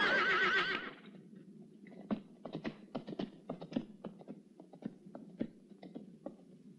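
A horse whinnies with a wavering pitch that cuts off about a second in. Then comes a run of irregular hoof clops on hard dirt.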